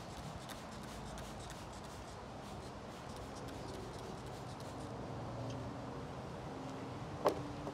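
Hand trigger spray bottle squirting cleaner onto a steel car subframe in a quick run of short spritzes, then a single sharp knock near the end.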